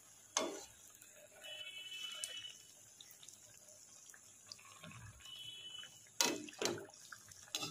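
Malpua batter frying in hot oil in a metal kadai, with a soft bubbling sizzle. A steel slotted spoon knocks sharply against the pan about half a second in and a few times near the end.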